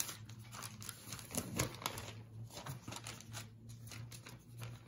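Sheet of newspaper rustling and crinkling faintly as it is folded and pressed flat by hand, in short scattered strokes.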